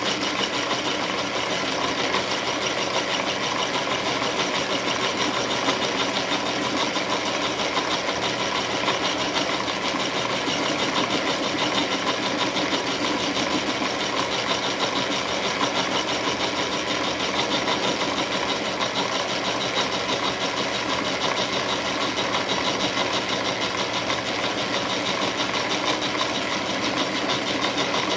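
Milling machine taking a cut with its cutter into a bench vise handle part: a steady, unbroken machining noise with a fast, even chatter and a high whine.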